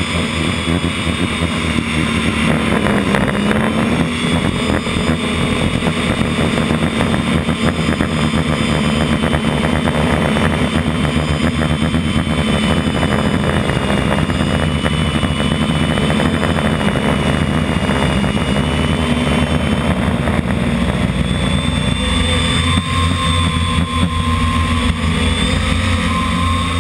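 FPV drone's motors and propellers running steadily, picked up close by its onboard camera, a constant whine whose pitch wavers slightly with the throttle over a rushing noise.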